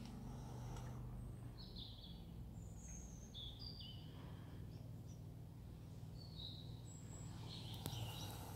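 Small birds chirping in the background, a scatter of short high calls over a steady low outdoor rumble, with a single sharp click near the end.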